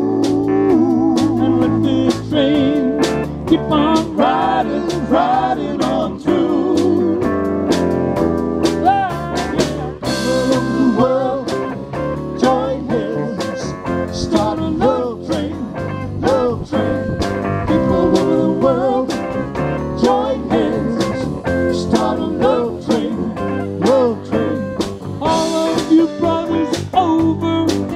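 Live band playing: electric guitars, bass, drum kit and keyboard, with a lead line of bent, wavering notes carrying the melody.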